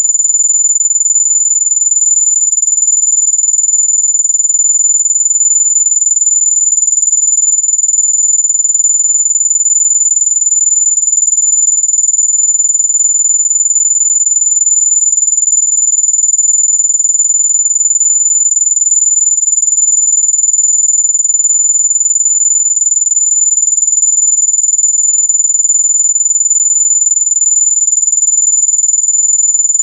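Continuous high-pitched pure tone just under 8 kHz, steady and unchanging: a synthesized mosquito-repellent tone meant to drive off mosquitoes.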